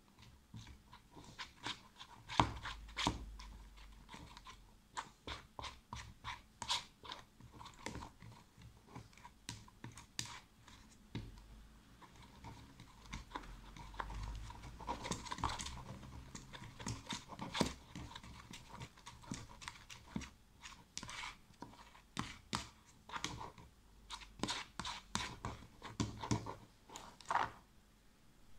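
Metal spoon stirring homemade slime in a clear plastic tub: many irregular clicks, taps and scrapes of the spoon against the tub as the sticky mixture is worked.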